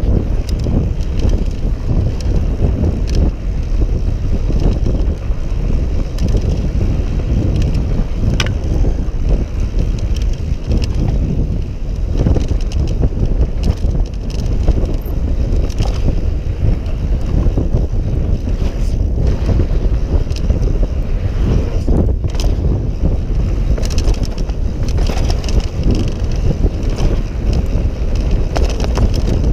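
Wind buffeting the action camera's microphone over the rumble of a Yeti SB6 mountain bike's knobby tyres rolling fast on a dry dirt trail, with scattered sharp clicks and rattles from the bike over bumps.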